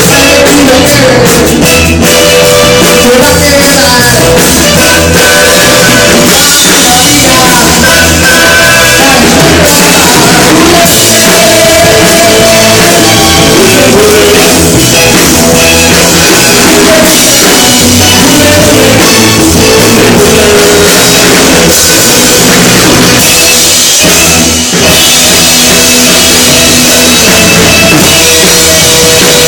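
Loud rock music with a drum kit keeping a steady beat, with a brief drop in level about 25 seconds in.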